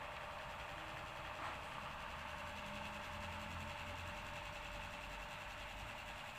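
Steady hum of a small motor running without change.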